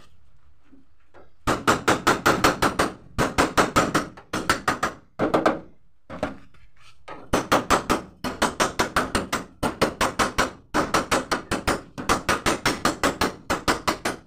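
Hammer tapping rapidly on the steel skin of a Mitsubishi L300 van door to work out a dent, several quick strikes a second in runs of about a second with short pauses. There is a quiet stretch at the start and another around six seconds in.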